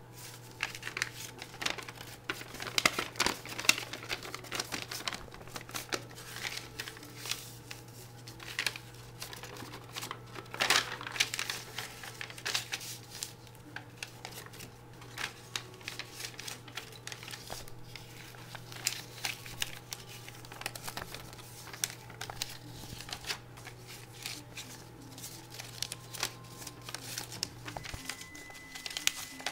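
A sheet of paper being folded and creased by hand into a paper airplane: irregular crinkling and rustling with sharper crackles now and then, over a steady low hum that stops near the end.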